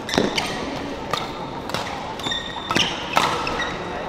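Badminton rackets hitting a shuttlecock in a rally: a string of sharp hits about two a second, with short high squeaks between them.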